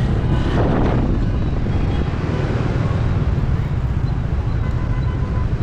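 Outdoor street noise: a steady low rumble under an even hiss, with no clear voices.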